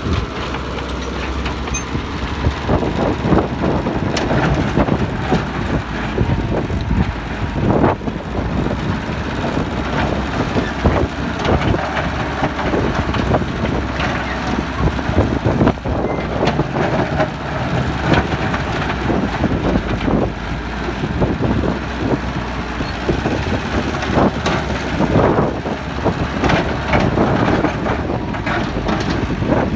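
Excavator's diesel engine working under load, with repeated knocks and clatter as material is dug and loaded into trucks. Two short high beeps sound about one and two seconds in.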